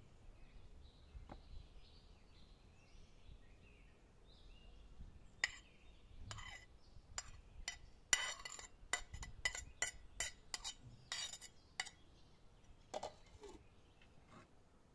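A metal spoon clinking and scraping against a porcelain plate as food is scraped off it into a steel pan. It is a run of sharp clinks and short scrapes starting about five seconds in and stopping near the end.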